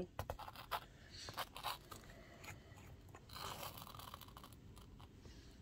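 Faint handling noise from dip-powder nail bottles and a brush: a few small sharp clicks in the first two seconds, then a soft scrape about three and a half seconds in.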